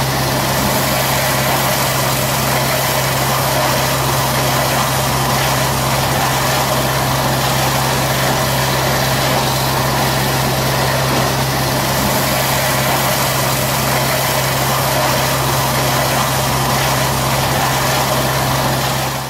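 500-bar high-pressure water-jetting pump and surface cleaner running steadily: an even engine hum under a constant hiss, stopping abruptly at the end.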